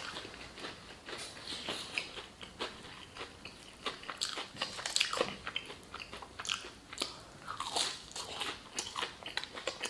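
Close-up eating sounds: a fried chicken tender being bitten and chewed, the breading crunching in irregular crackly clicks with wet mouth noises, as in a mukbang.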